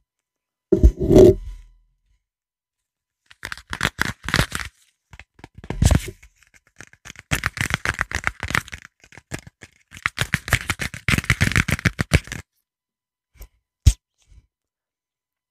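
Crinkly wrapper being handled and torn open close to the microphone: a run of sharp crackles and crinkles lasting several seconds, with a single click near the end. A short low mouth or gum sound comes about a second in.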